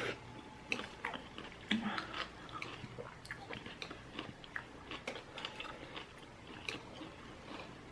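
Close-up mouth sounds of a person chewing udon-type ramen noodles: irregular wet smacks and clicks with no steady rhythm.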